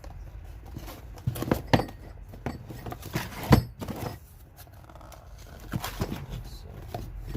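Handling noises: a string of separate knocks and clicks, about seven of them, the loudest a sharp knock about three and a half seconds in.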